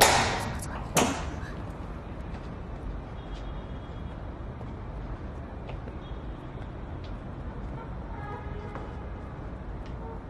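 Two sharp knocks about a second apart, then a steady low rumble of background noise with a few faint ticks.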